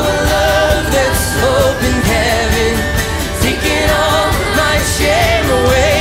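Live church worship music: a band playing a song with a steady beat, and voices singing the melody with the congregation singing along.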